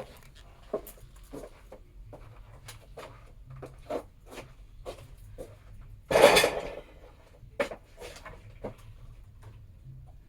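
Scattered light clicks and knocks, with one louder rushing burst of about half a second just after six seconds in; no engine running.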